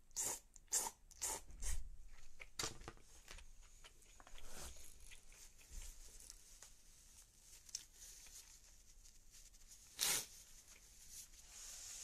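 Noodles being slurped in a few quick sucks, followed by chewing and the rustle of a paper tissue being handled.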